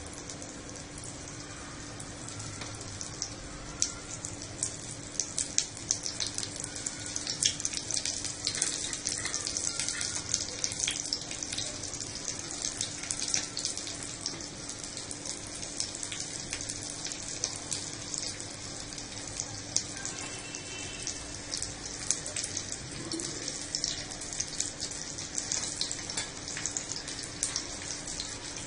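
Cornflake-coated chicken nuggets shallow-frying in hot oil: a steady sizzle with frequent sharp crackles and pops, under a faint steady hum.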